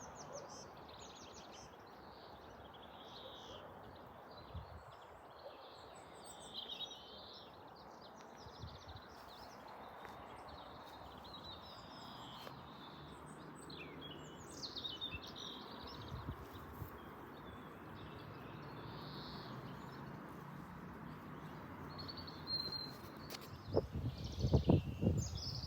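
Small birds chirping and twittering in short, scattered calls over a steady faint background hiss. There are a few louder knocks near the end.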